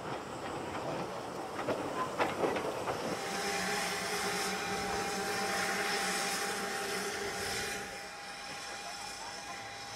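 Small narrow-gauge steam locomotive hissing steam steadily from about three seconds in, easing off a couple of seconds before the end. A few metallic clanks come just before the hiss starts.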